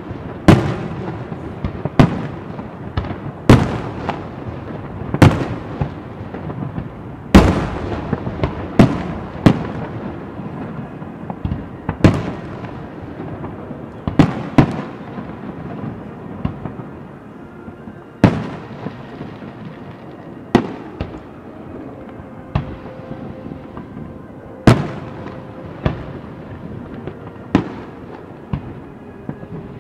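Aerial firework shells bursting one after another, a sharp boom every second or two, each trailing off in a rumble, with a continuous rumble of smaller bursts between them.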